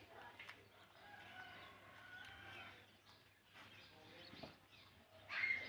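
Faint bird calls, with one louder short call near the end.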